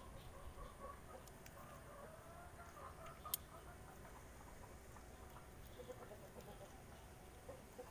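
Faint bird calls, with one sharp click about three seconds in.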